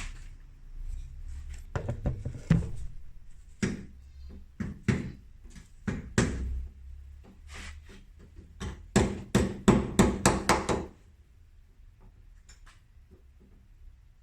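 Hammer knocks during a refrigerator door hinge repair: scattered sharp strikes, then a quick run of about seven blows, after which the knocking stops.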